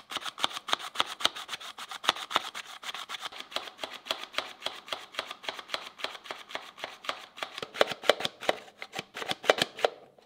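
Flour with baking powder being sifted through a sieve: a rapid, even rattling and tapping, about five or six strokes a second, that stops shortly before the end.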